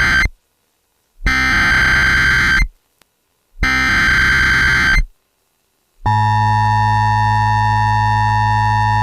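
Emergency Alert System SAME header: the tail of one screeching digital data burst, then two more, each about a second and a half long with short silences between. About six seconds in comes the steady EAS attention tone, the signal that a warning announcement is about to be read.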